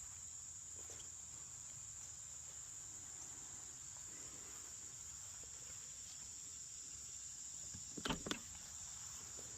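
Crickets chirping in a steady, high-pitched chorus, with a brief louder sound about eight seconds in.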